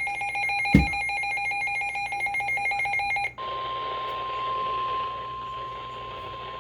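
An electronic alert ringing as a rapid pulsing, trilling multi-tone, with one sharp click about a second in. After about three seconds it cuts off suddenly and gives way to the steady single-pitch 1050 Hz NOAA Weather Radio alert tone over radio hiss, which announces a National Weather Service warning.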